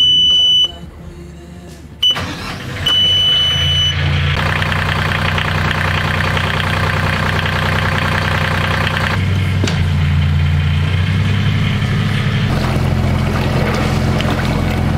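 Vetus marine diesel engine being started from its instrument panel: the panel's warning buzzer beeps, then the engine cranks and catches about three seconds in and settles into a steady idle. For several seconds in the middle a louder mechanical clatter is added over the idle.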